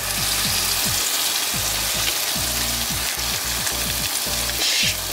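Ground chicken-and-pork meatball mixture sizzling steadily in a hot frying pan with olive oil as it is pressed out of a plastic bag. The sizzle briefly gets louder and brighter near the end.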